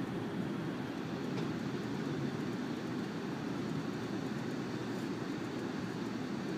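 Steady low rumble of a passenger train running along, heard from inside the carriage.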